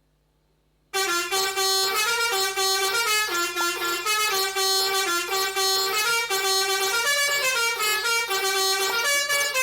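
Pianika (melodica) playing a telolet basuri bus-horn tune: loud, reedy held notes that step up and down in quick succession, starting about a second in.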